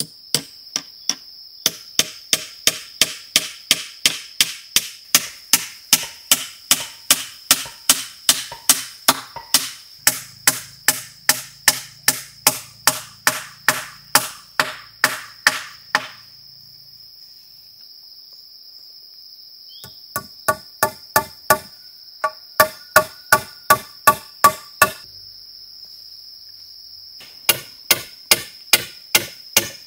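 A tool striking wood in quick, even blows, about three a second, in three runs with short pauses between them. Under the blows runs a steady high-pitched drone of insects.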